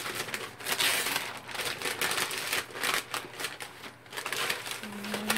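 Paper wrapping rustling and crinkling in a run of irregular bursts as a wrapped item is unwrapped by hand.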